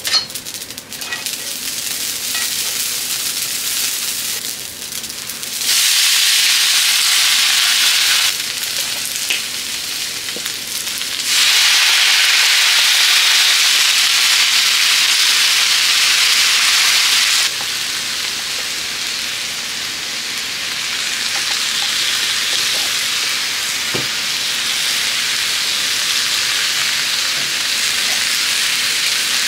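Dried baby sardines and chopped cabbage sizzling in oil in a black steel frying pan over a gas flame. The sizzle swells loud twice, for a couple of seconds about six seconds in and for about six seconds from eleven seconds in, then settles to a steady frying hiss while the food is tossed with tongs.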